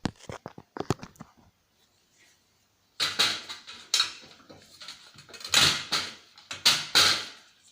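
Hand disassembly of an old CRT TV/DVD combo: a few sharp clicks, then after a short pause a series of loud scraping, rasping strokes as plastic and metal parts are pried and pulled loose.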